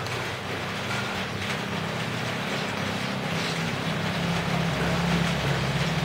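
A motor vehicle's engine running steadily with a low hum, growing louder in the second half, over a steady hiss of falling rain.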